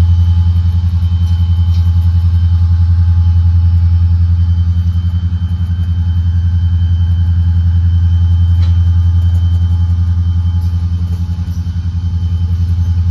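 Maintenance-of-way cars of a freight work train rolling slowly past at close range: a steady low rumble with a faint high steady tone over it and a couple of brief clicks.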